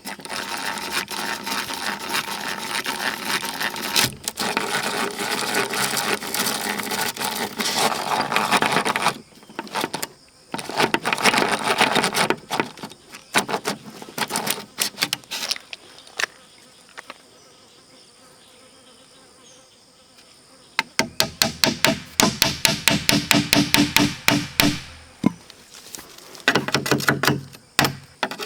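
Hand-tool work on wood or bamboo: long stretches of rough scraping or sawing, then a run of rapid, even knocks starting about two-thirds of the way in. Insects drone steadily in the background.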